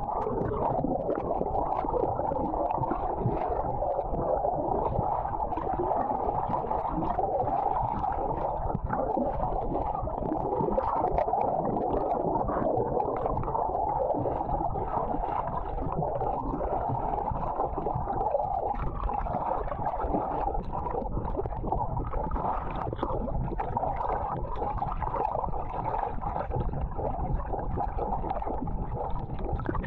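Muffled, steady rushing and bubbling of churning surf, heard with the camera underwater.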